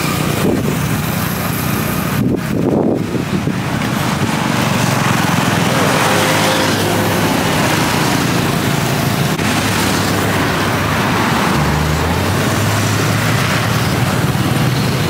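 Steady road traffic: vehicle engines running under a continuous rush of noise.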